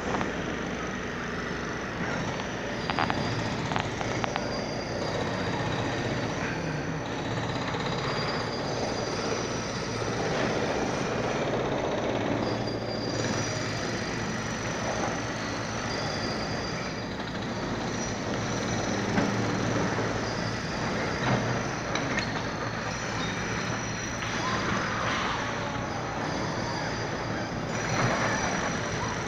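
Heavy demolition machinery working: a steady diesel engine drone with grinding and a few sharp knocks.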